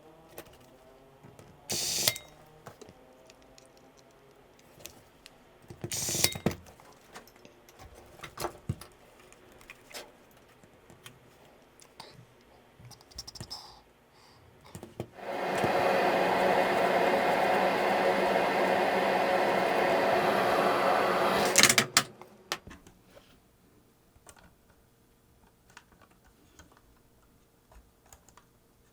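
Scattered clicks and knocks of small parts being handled. Then a loud steady whirring hiss lasts about six seconds and cuts off with a click.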